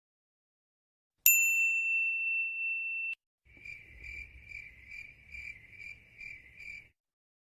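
A single bright ding that rings for about two seconds and cuts off, then cricket chirping in even pulses, about eight chirps over three seconds: the stock crickets effect for an awkward silence.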